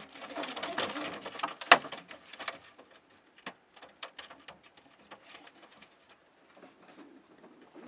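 Racing pigeons stirring inside a slatted wooden transport crate as it is handled: rustling and scuffling for about two seconds, with one sharp wooden knock from the crate's lid flap, then scattered lighter taps and clicks.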